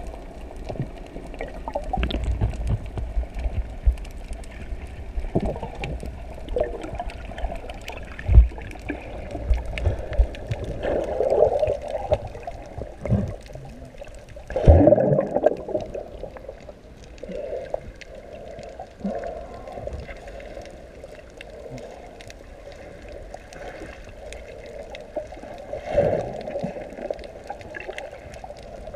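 Muffled water sloshing and gurgling heard through a submerged camera, with occasional low thumps and swishes as the camera moves through the water; the loudest surges come near the middle.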